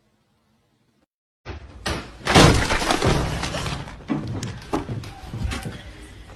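Something crashing and shattering, starting suddenly after a second and a half of silence, followed by a run of clattering knocks that die away.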